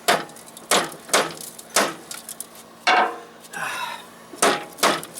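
A hammer knocking a socket onto a stubborn lock nut: about seven sharp metallic strikes at uneven intervals.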